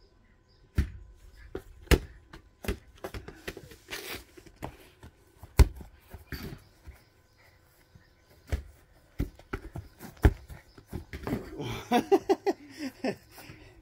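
A string of separate sharp thuds and knocks from a football being kicked and bouncing on grass, mixed with footsteps and handling bumps on the phone filming. The loudest thud, a little over halfway through, is a kick at goal, and a quick flurry of short knocks comes near the end.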